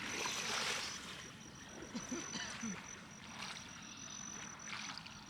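Water washing and rushing, loudest in the first second and then settling to a softer steady rush.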